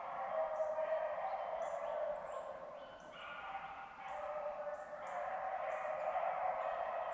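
A pack of beagles baying together while running a rabbit, an overlapping chorus of cries that fades briefly about three seconds in, then swells again.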